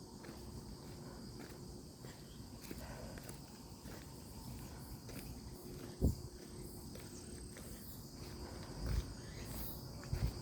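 Quiet forest ambience: a steady high-pitched insect trill over a low rumble, broken by two dull thumps about six and nine seconds in.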